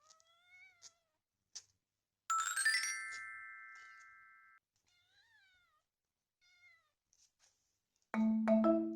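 A tabby kitten meowing softly, a few short calls that rise and fall in pitch. About two seconds in, a bright chime sound effect rings out and fades away, and marimba music starts near the end.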